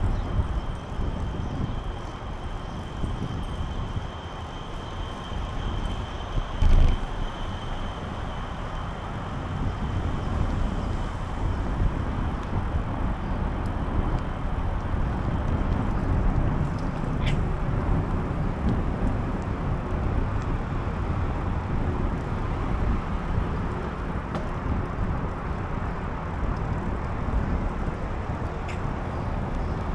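Steady rush of road traffic and riding noise heard from a moving bicycle, with a thump about seven seconds in. A faint steady high tone runs through the first half.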